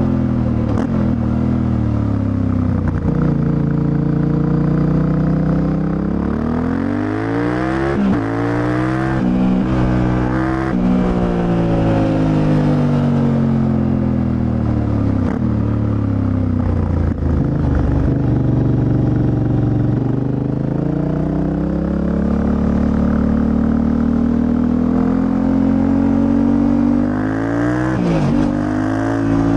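Yamaha Ténéré 700's 689 cc CP2 parallel-twin engine under way, its pitch climbing under acceleration and dropping repeatedly through gear changes and off-throttle slowing for bends.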